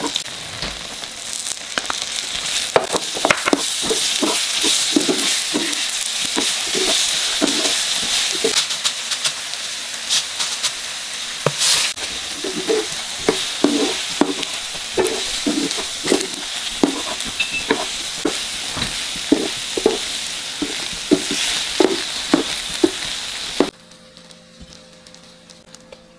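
Thick soy-sauce and sugar glaze sizzling as it reduces on high heat in a nonstick frying pan, with repeated short strokes of a spatula stirring small whole potatoes through it as sesame oil and sesame seeds are mixed in. The sizzling cuts off suddenly shortly before the end.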